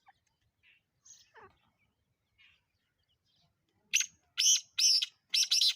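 Black francolin calling: after a few faint chirps, a quick run of about five loud, harsh, grating notes starting about four seconds in.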